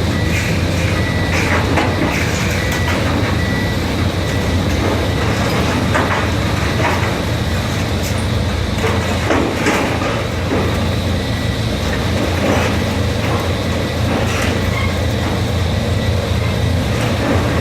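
Demolition machinery running steadily with a low engine hum, with irregular clanks and knocks of metal and debris.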